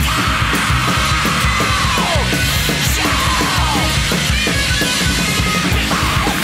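Loud heavy rock music with yelled vocals.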